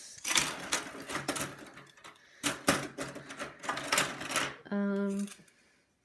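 Clicks and clatter of desktop RAM sticks being handled and pushed at a motherboard memory slot, a stick of the wrong type that will not seat. Near the end, a short steady hum for about half a second.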